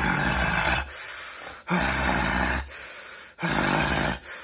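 A man imitating a dog with loud, breathy huffs right into the microphone: three long huffs about a second and a half apart.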